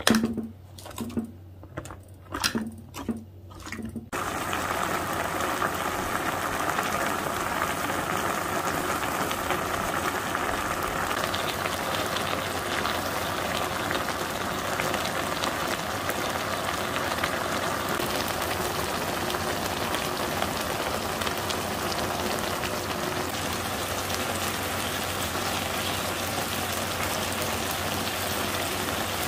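A few short soft knocks as slices of meat are dropped into a foil pan. About four seconds in, a steady boiling begins: a spicy stew of octopus, beef tripe and shrimp bubbling hard in the foil pan on a portable gas burner.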